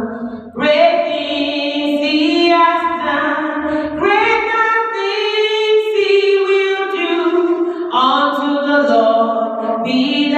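A woman singing a slow hymn unaccompanied, holding long notes and sliding between them.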